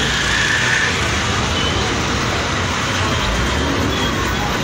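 Steady roadside traffic din: engines of CNG auto-rickshaws and other vehicles running and passing, with a low engine hum underneath.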